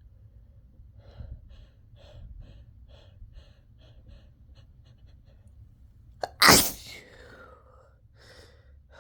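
A person's build-up of short, quickening catching breaths, then one loud, explosive sneeze with a falling tail a bit past halfway, followed by a softer breath. The sneeze is deliberately induced, one of a fit of sneezes.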